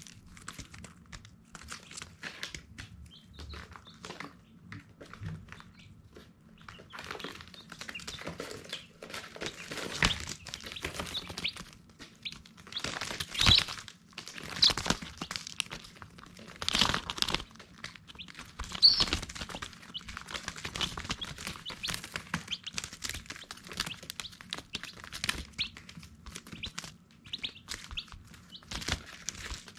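Baby chicks peeping in short, high calls, over scattered clicks and rustles. The calls are louder and busier in the middle stretch.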